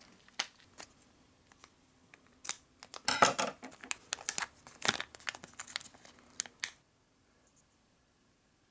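Foil antistatic bag crinkling and crackling in the hands as it is opened and the wireless card is taken out: an irregular run of sharp crinkles that stops about two-thirds of the way through.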